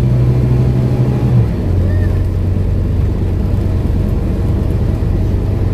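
Scania N230UD double-decker bus's five-cylinder diesel engine running under way, heard from inside the saloon as a steady low hum. About a second and a half in, the engine note drops to a lower pitch and holds there.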